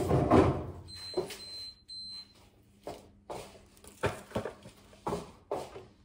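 Irregular knocks and clunks of plastic shelves, drawers and items being handled inside an open refrigerator, with a short high electronic beep about a second in.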